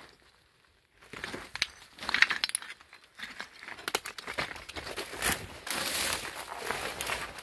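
A hiker's footsteps crunching and crackling on the trail: a dense, irregular run of small cracks and clicks that starts about a second in.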